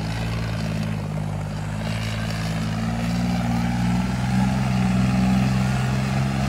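Modified stunt tractor's diesel engine running hard as it rides a wheelie on its rear wheels, a steady low drone that rises slightly in pitch and loudness about three seconds in.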